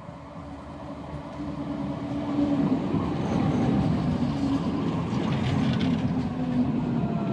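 Tramlink tram approaching and running close past on its rails. It grows louder over the first two seconds and stays loud as the cars go by, with a steady motor hum, wheel noise on the rails, and a faint tone that falls in pitch near the end.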